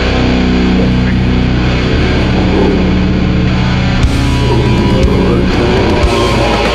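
Death-doom metal music: heavy distorted guitar holding long, low chords that ring for several seconds.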